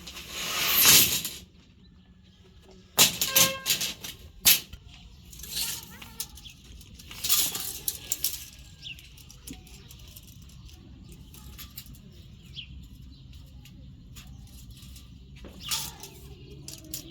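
Metal pieces being handled on a workbench: irregular clanks, clicks and short scraping sounds. One piece rings briefly about three seconds in.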